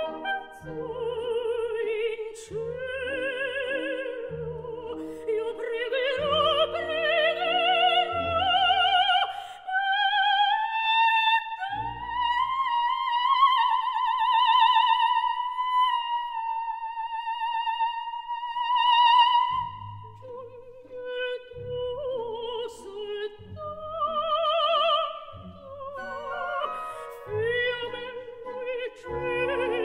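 Coloratura soprano singing an operatic aria with orchestra, her voice carrying strong vibrato over pulsing orchestral chords. She climbs to a long high note held for about seven seconds while the orchestra falls silent beneath it. The orchestra then comes back with short repeated chords under further phrases.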